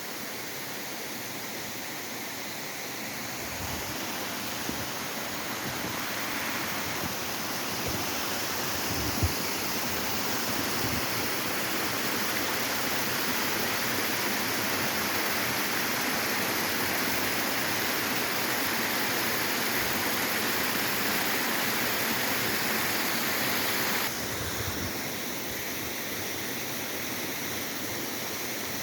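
Waterfall rushing with a steady, even noise of falling water, growing louder a few seconds in and dropping suddenly in level about three-quarters of the way through. A few brief low thumps come through, the sharpest about nine seconds in.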